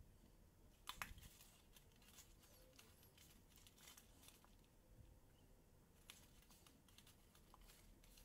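Near silence, with faint rustles and clicks of cardstock being handled and pressed between the fingers. A slightly louder rustle comes about a second in.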